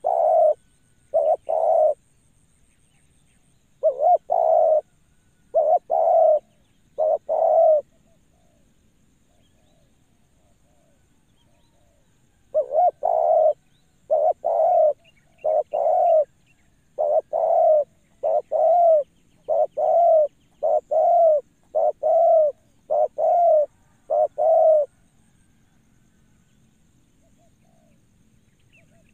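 Spotted dove (tekukur) cooing in repeated bouts of short, even coos: a few at the start, another bout about four to eight seconds in, and a long run of a dozen or so coos from about a third of the way through until a few seconds before the end.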